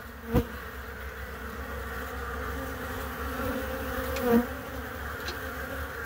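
Honeybees buzzing at a busy hive entrance, a steady hum of many wings, with one bee briefly louder as it passes close about four seconds in.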